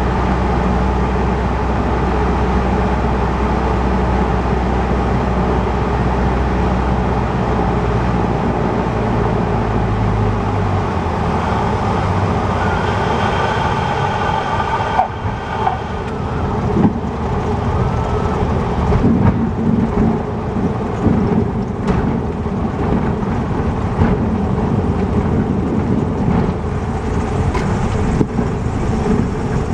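Cessna 150's engine running steadily on final approach, then pulled back toward idle about a third of the way in. A high steady tone sounds for a few seconds just before touchdown. After touchdown the wheels rumble on the runway with scattered bumps as the plane rolls out.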